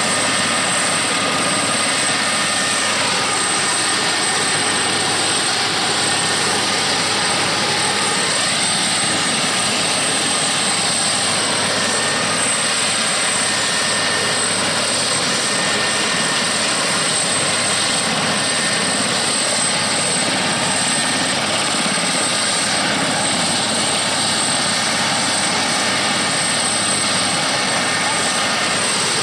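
Eurocopter AS532 Cougar helicopter on the ground with its twin turboshaft engines and main rotor running at idle: a loud, steady rush of turbine and rotor noise with faint steady high tones.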